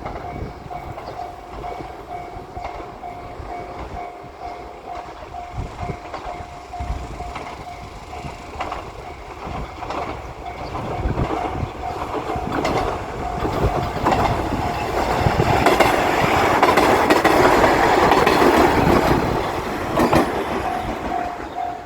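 Japanese level-crossing bell ringing in a steady, even clang. A JR Shikoku KiHa 185 series diesel limited-express railcar approaches and passes, its wheels clacking over the rail joints. The train grows loud from about ten seconds in and covers the bell until the bell is heard alone again near the end.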